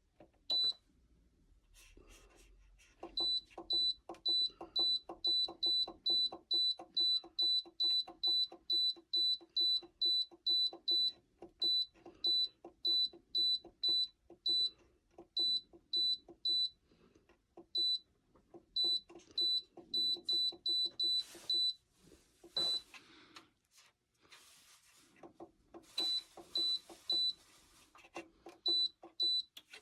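Dreo oil-filled radiator heater's controls beeping at each button press: a short high beep with a click, about two to three a second, in runs with brief pauses as settings are stepped through. Two bursts of rustling handling noise come in the last third.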